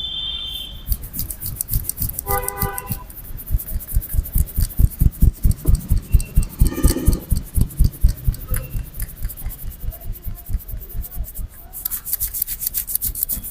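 A barber's hands rubbing and tapping a customer's head in a massage: a fast, even run of strokes about four a second, turning to brisk rubbing near the end.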